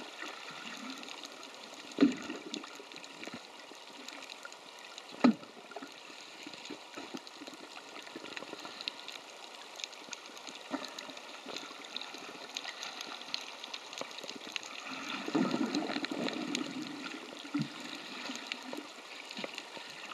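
Underwater ambience picked up by a camera held under the sea: a steady watery hiss with scattered faint clicks, two sharp knocks about 2 and 5 seconds in, and a stretch of louder gurgling water noise near the end.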